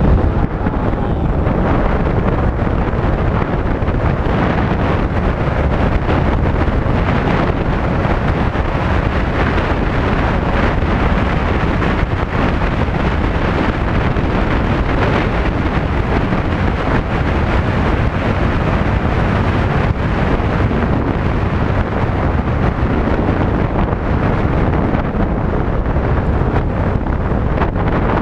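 Steady wind rush on the microphone of a camera riding on a moving Yamaha Tricity scooter, mixed with road and scooter running noise, loud and unchanging throughout.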